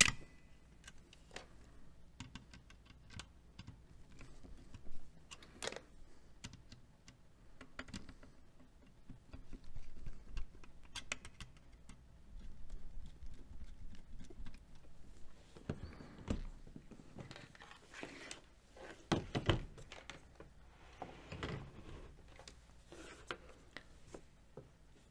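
Screwdriver loosening the terminal screws of a Square D NEMA size 00 motor starter while the wires are taken off: scattered small clicks and scrapes of metal and plastic, with a few louder handling knocks.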